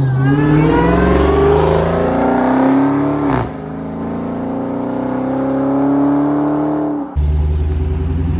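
Dodge Charger SRT Hellcat Redeye's supercharged 6.2-litre V8 at full throttle with supercharger whine. The revs climb, an upshift comes about three and a half seconds in, and they climb again. The throttle closes about seven seconds in, leaving a steady low rumble.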